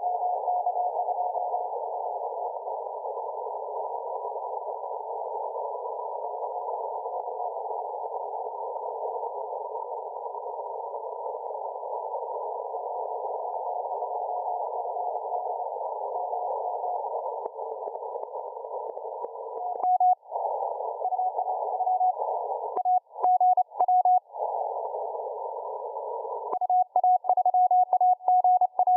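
Morse code (CW) telegraphy heard through a shortwave receiver's narrow CW filter: a single beep tone keyed on and off in dots and dashes over band hiss. The signal is faint under the noise at first, then comes up strong about two-thirds of the way in.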